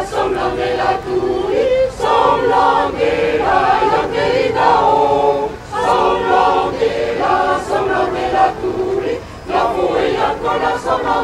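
A choir singing, several voices together in phrases of a second or two, with short breaks for breath between them.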